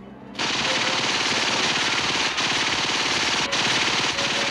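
Sustained automatic gunfire, a continuous rapid rattle of shots that starts about half a second in and keeps going.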